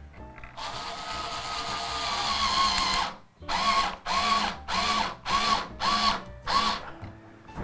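Power drill driving a screw to fix a piece of plastic in place: one long run of about two and a half seconds, then six short trigger bursts as the screw is seated. The motor's whine dips in pitch within each burst.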